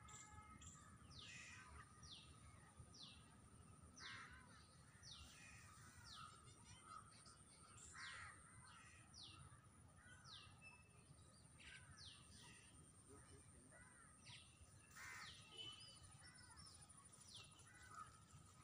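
Faint birds calling over and over in the background, a string of short calls that each sweep downward in pitch, coming every half second to a second, over a steady high hum.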